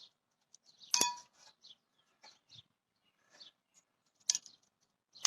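Two sharp clinks, each with a short metallic-sounding ring: one about a second in and one near the end, with fainter taps and rustles between them.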